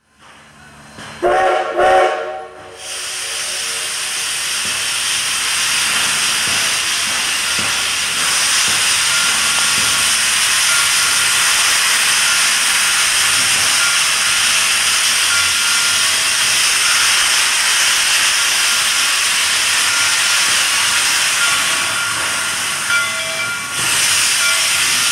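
Two short steam-whistle blasts about a second in, followed by a steady, loud hiss of escaping steam from Susquehanna 142, a 2-8-2 steam locomotive, as it moves slowly forward.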